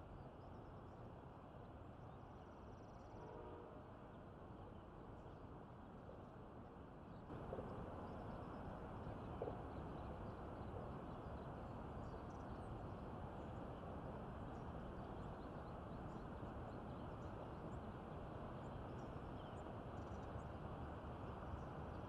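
Faint outdoor ambience: a steady low rumble with a few faint bird chirps. It steps up in level about seven seconds in.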